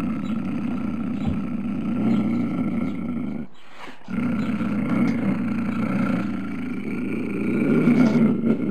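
Tiger growling in two long, low growls, with a short break about three and a half seconds in.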